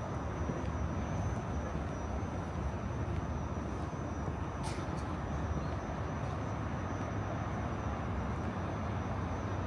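Steady outdoor city ambience: a low, even rumble of distant traffic, with a single short click about five seconds in.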